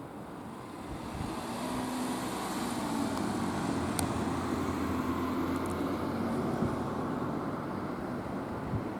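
A motor vehicle running, its rumble growing louder over the first few seconds and then holding steady, with a sharp tick about four seconds in.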